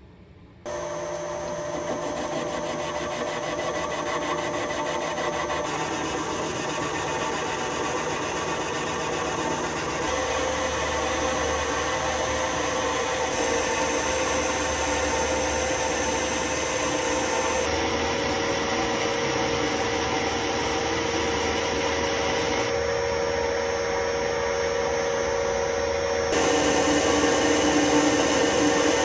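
Metal lathe turning a steel bar, the lathe running steadily under the cut with a few steady tones over the cutting noise. The sound jumps abruptly to a new pitch and level several times.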